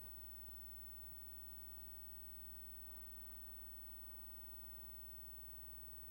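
Faint steady electrical hum with a low buzz, and faint indistinct murmuring about halfway through.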